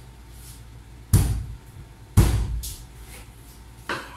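Heavy kitchen knife chopping down through a large trevally onto a plastic cutting board: two loud thuds about a second apart, then a lighter one near the end, the blade meeting hard bone.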